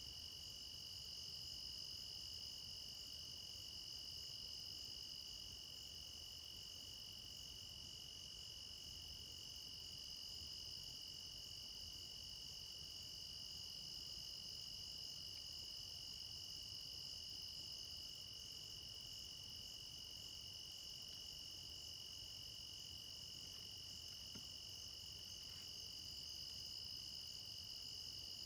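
Evening chorus of crickets: a faint, unbroken high trill at two steady pitches.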